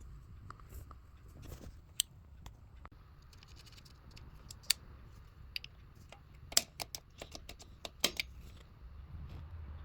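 Scattered sharp clicks and light taps of small parts and hand tools being handled, with a quick cluster of clicks about two-thirds of the way through and another just after, over a low, steady hum.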